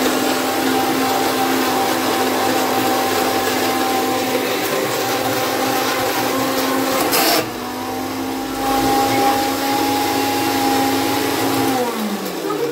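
Electric mixer grinder running steadily with a motor whine, grinding biscuits to powder in its steel jar. It cuts out briefly about seven seconds in and starts again. Near the end it is switched off, and the whine falls in pitch as the motor spins down.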